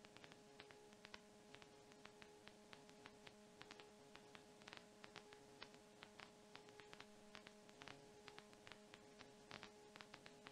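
Near silence: a faint steady electrical hum with irregular clicks of static, and no engine noise.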